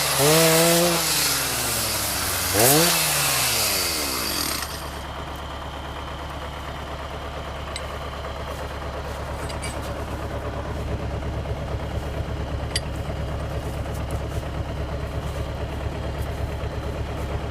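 MTZ-82 tractor's diesel engine revved hard, its pitch rising and falling twice in the first few seconds over a loud hiss, then dropping back to a steady run for the rest.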